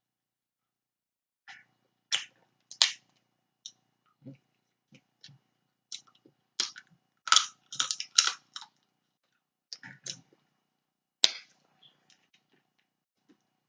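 Snow crab leg shells cracking and snapping as they are broken open by hand. The sharp cracks come irregularly, with a quick cluster about seven to eight and a half seconds in and a single sharp crack near eleven seconds.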